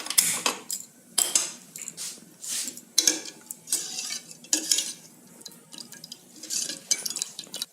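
A utensil clinking and scraping against a cooking pan holding the spice-and-water mixture for kadha, in irregular knocks.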